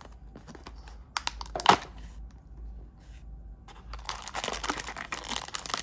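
Plastic snack wrapper being handled and torn open. A few sharp clicks come about a second and a half in, then a dense crinkling run over the last two seconds.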